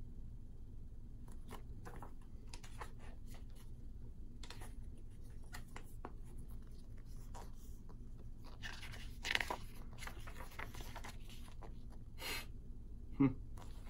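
Pages of a small paper booklet being turned and handled: soft, scattered paper rustles and ticks, with a louder rustle about nine seconds in. A brief low hum near the end.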